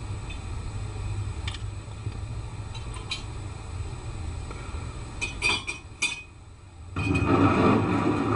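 Laboratory glassware clinking as a flask and test tube are handled, a few light clinks with a quicker cluster about five seconds in, over a steady low rumble. From about seven seconds in, a louder rush of noise covers it.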